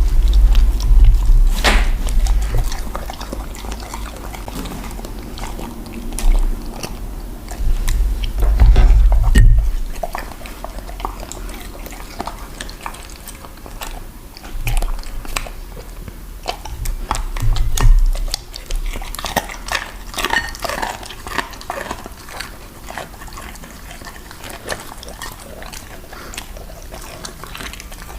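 A dog chewing and crunching food in a long run of short, crisp crunches. Loud, low thumping rumbles come in at the start, again around eight to ten seconds in, and briefly near eighteen seconds.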